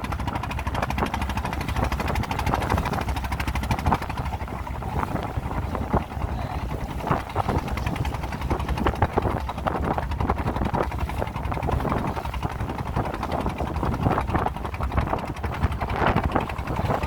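A small boat's motor running steadily under way, a low throbbing rumble with uneven knocks and splashes from the hull.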